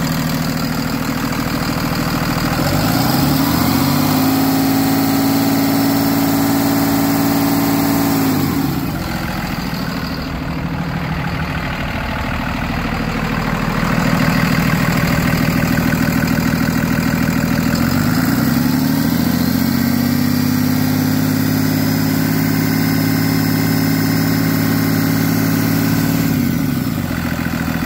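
2011 Cummins ISB 6.7 inline-six turbodiesel running. It idles, is raised to a higher engine speed a few seconds in, and is held there for about five seconds before falling back to idle. The same rise, hold and drop happens a second time about two-thirds of the way through.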